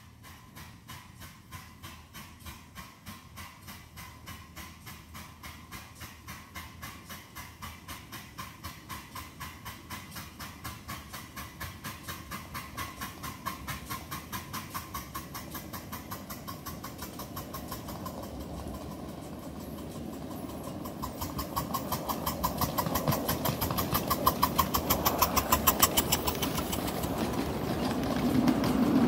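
Miniature ride-on live steam locomotive working with a rapid, even beat of exhaust chuffs that grows steadily louder as it approaches. Near the end its train of small hopper cars rattles past over the rail joints.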